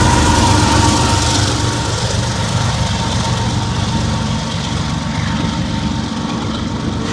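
Union Pacific empty coal train rolling past, a steady rumble and rattle of the train that slowly grows quieter.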